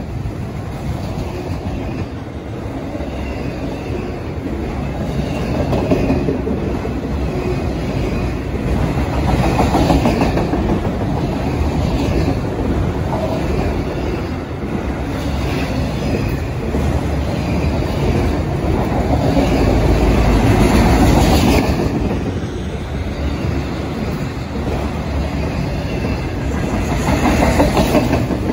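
Freight train of autorack car carriers passing close by: a continuous rumble and rattle of steel wheels rolling on the rails, swelling louder and easing off several times.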